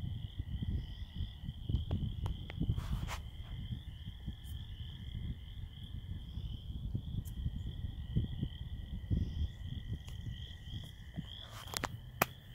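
A steady high-pitched trilling chorus of small calling animals over a low, irregular rumble, with a few faint clicks.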